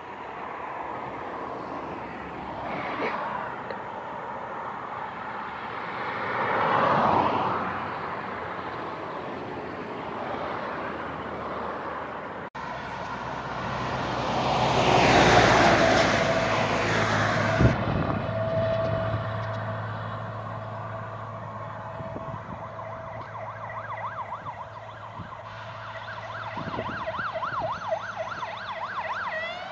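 Cars passing on a dual carriageway, their tyre and engine noise swelling and fading. After a cut, a louder vehicle passes, then fire engine sirens approach from a distance: a fast yelp grows louder near the end, and a wail starts to rise at the very end.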